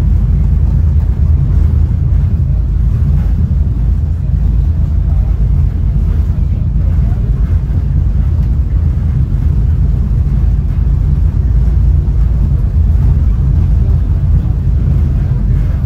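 Steady low rumble of a Caltrain Gallery bilevel passenger car rolling along the track, heard from inside the car, with no sudden knocks or changes.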